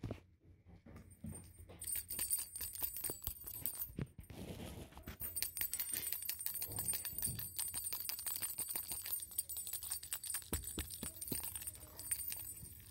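A small bell in a kitten's toy jingling and rattling in quick, irregular shakes as the kittens bat it about, starting about a second in.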